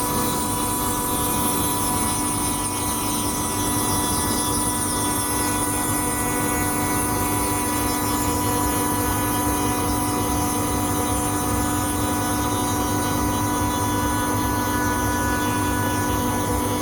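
CNC router running steadily, a continuous machine hum with several steady whining tones over a noisy rush.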